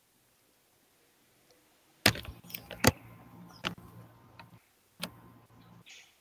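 A few loud, sharp clicks and knocks from a computer keyboard and mouse picked up by an open microphone, starting about two seconds in, with a low hum under them that comes and goes.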